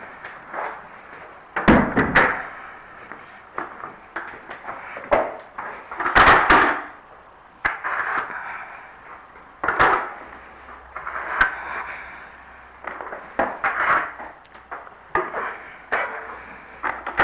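Plastic manure fork scraping along a stable floor and knocking against the wooden wall as it picks up horse droppings, with droppings tipped into a plastic muck skip: a run of irregular scrapes and knocks.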